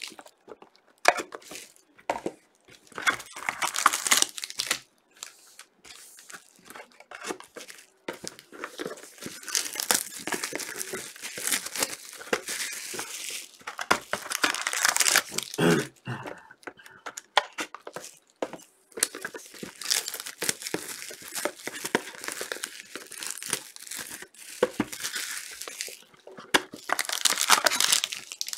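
Clear plastic shrink-wrap being torn and crumpled by hand off sealed trading-card boxes: irregular crinkling and tearing rustles with a few short pauses.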